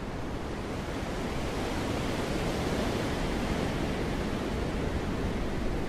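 Wind blowing in a steady, rushing wash that swells a little stronger over the first few seconds, then holds.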